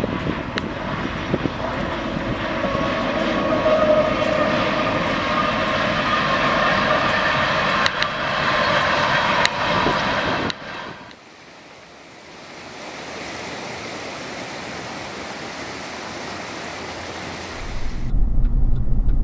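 Union Pacific diesel freight locomotives passing close by, their engines running with a loud, steady drone and a few sharp clicks. About halfway through the sound drops suddenly to a much quieter hiss. Near the end a vehicle's low rumble comes in.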